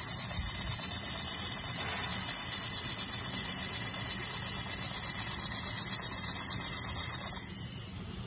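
Handheld 1000 W fiber laser welder running a weld along a thin stainless steel seam: a steady high-pitched hiss of the welding torch and its shielding gas, which cuts off about seven seconds in as the weld ends.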